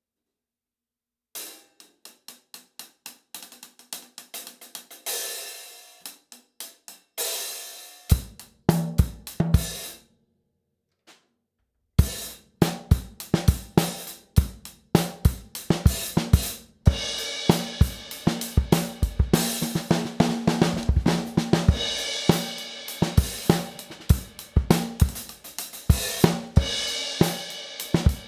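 Zildjian 14" A Rock hi-hats played alone at first: a run of closed chick strokes with a couple of longer open washes. About eight seconds in, bass drum and snare of a Yamaha Beech Custom kit join the hats, and after a short break a full rock beat on hats, snare and kick runs from about twelve seconds in.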